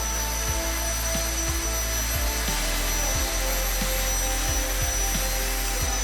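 Electric power tool cutting plywood, its motor running at a steady high whine that winds down as it switches off at the end.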